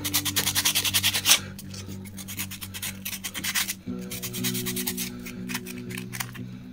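Sandpaper rubbed by hand over a carved wooden figure in quick back-and-forth strokes, loudest in the first second and a half and softer later on.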